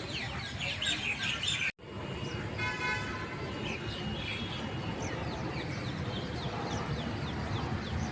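Birds chirping: many short, quick calls throughout, over a steady low background rumble. The sound cuts out for an instant just under two seconds in, and a short horn-like toot sounds about three seconds in.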